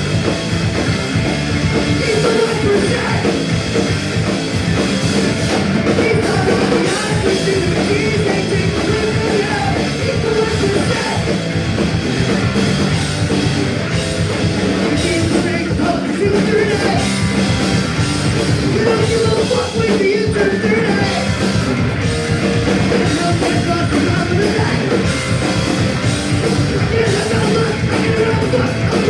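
Punk rock band playing live: electric guitars and a drum kit with singing, loud and unbroken.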